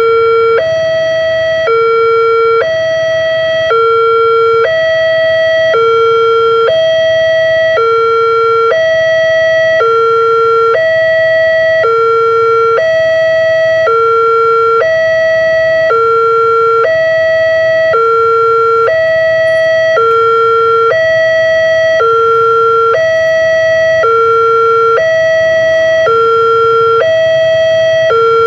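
Railway level-crossing warning alarm sounding from the signal post's loudspeaker: an electronic two-tone signal alternating steadily between a lower and a higher pitch, about a second each, warning that a train is approaching and the barriers are down.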